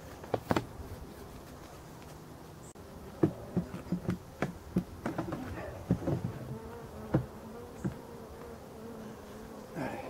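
Black honeybees buzzing in flight around the hive, a wavering steady hum. From about three seconds in comes a run of sharp knocks and scrapes as the varroa board is handled and slid back into the hive's base.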